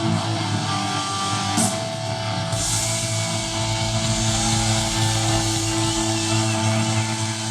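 Hardcore punk band playing live on loud, distorted electric guitars with held, ringing notes. About two and a half seconds in, the full band with drums comes in.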